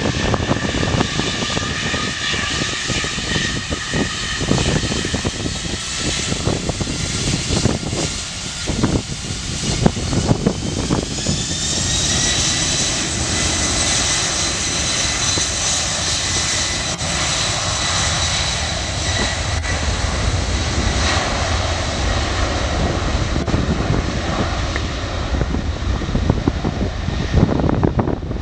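Boeing 747-400 freighter's four jet engines running with a steady whine over a low rumble, the whine rising in pitch about eleven seconds in and then holding as the engines spool up to takeoff power for the takeoff roll.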